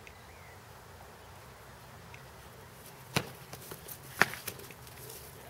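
Padded chanbara practice swords clashing: two sharp clacks about a second apart, with a few lighter knocks between and after them.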